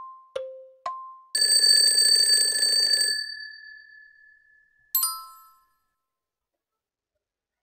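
Countdown timer sound effect: two last clock ticks, alternating high and low, then an alarm-clock-style bell rings for about two seconds as the time runs out. About five seconds in, a short bright chime marks the answer being revealed.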